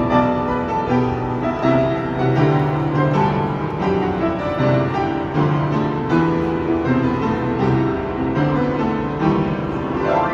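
Solo piano playing chords under a melody line, with new notes struck about every half second.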